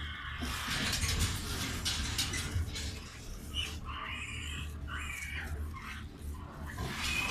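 Pigs in farrowing crates, sows with young piglets, grunting and squealing, with a few short high squeals around the middle, over a steady low hum.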